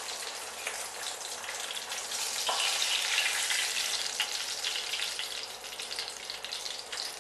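Rohu fish steaks frying in hot mustard oil in a stainless steel pan: a steady crackling sizzle that swells about three seconds in.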